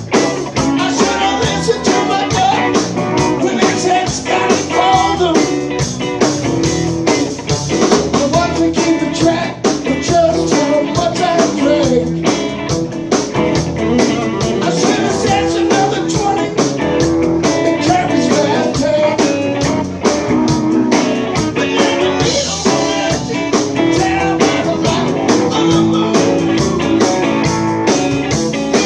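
A live blues-rock band playing: electric guitars, electric bass and drum kit, with bending guitar lines over a steady beat.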